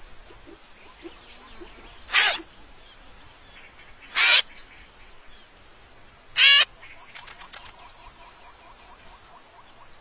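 Three short squeaky calls, about two seconds apart, each wavering in pitch, voiced as the calls of cartoon round bird chicks in a nest. Under them is a faint background with a steady high-pitched tone.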